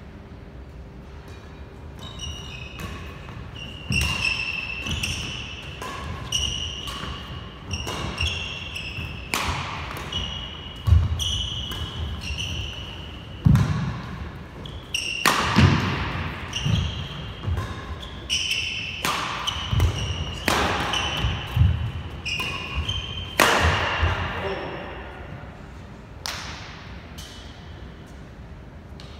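Badminton rally: sharp racket strikes on the shuttlecock, ringing in a large hall, with frequent short high shoe squeaks on the court floor as the players move. The rally runs from about two seconds in until near the end, then dies down to a couple of stray hits.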